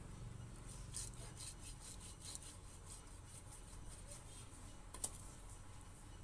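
Knife blade scraping scales off a small fish in a run of quick, faint rasping strokes, with one sharp click about five seconds in.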